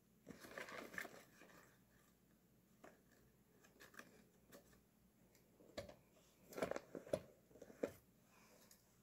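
Faint handling sounds of long kitchen tongs gripping a small cup with a paper lid: a crinkly paper rustle near the start, scattered light clicks and taps, then a few louder knocks and rustles about seven seconds in.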